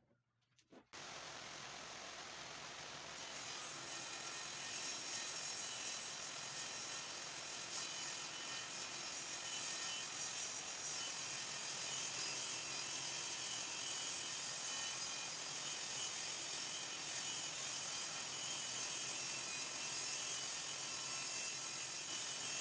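Circular saw running and cutting into wood: a steady, dense whine-and-rasp that starts suddenly about a second in, gets a little louder a few seconds later and holds even throughout.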